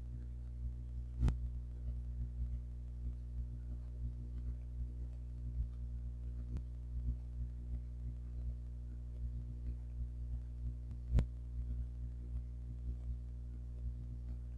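A steady low drone with no speech, broken by a few faint clicks, the clearest about three-quarters of the way through.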